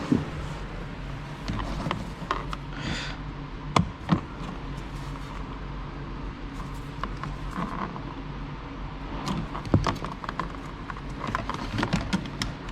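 Scattered clicks and knocks of hands working loose a car's seat belt fittings and trim panels, with a brief scrape about three seconds in and the loudest knocks about four and ten seconds in, over a steady low hum.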